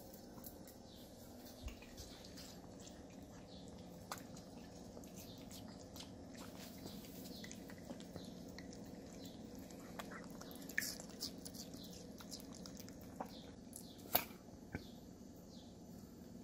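Chihuahua licking and chewing watermelon: faint wet clicks and smacks, a few sharper, over a steady low hum. Faint short high chirps repeat in the background.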